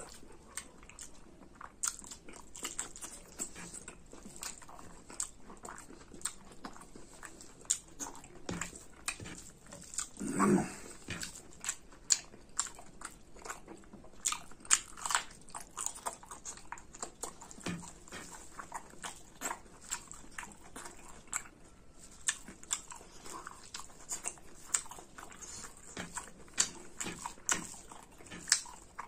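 Close-miked chewing and lip-smacking of a person eating pork curry and rice by hand, with crisp bites of raw cucumber and green chili: a constant run of wet smacks and clicks. There is one louder, longer mouth sound about ten seconds in.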